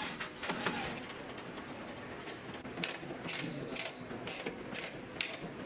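Electric screwdriver and bolt hardware at a DC circuit breaker's bus bar terminal: a brief run of the screwdriver right at the start, then a series of sharp mechanical clicks, about two a second, in the second half.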